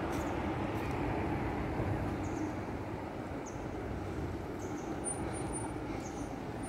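Steady low rumble of traffic and rail noise at a level crossing, easing slightly, with faint short high chirps about once a second.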